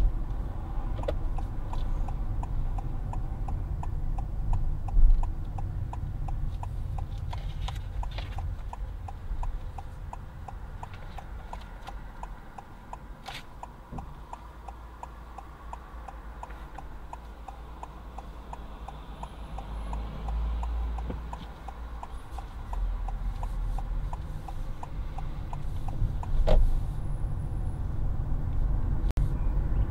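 Car's turn-signal indicator ticking steadily as the car signals and makes a left turn, over low engine and road rumble. The ticking stops about four seconds before the end.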